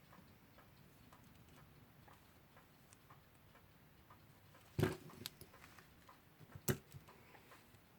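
Two sharp clicks about two seconds apart, from the metal parts of a clock movement and small tools being handled during disassembly, over faint ticking of a mechanical clock.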